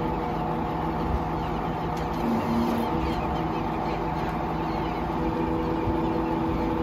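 An engine running steadily at an even, unchanging pitch, a constant hum.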